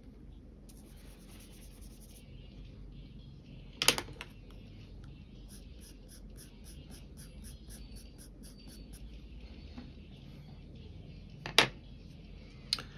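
Pencil scratching on paper in quick short strokes, about four a second through the middle, with three sharp clicks, one about four seconds in and two near the end.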